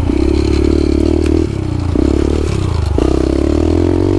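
Yamaha TT-R125 dirt bike's single-cylinder four-stroke engine, ridden on a dirt track, revving up and down as the throttle is worked, with several sudden changes in pitch. A light clatter comes from the bike over the rough ground.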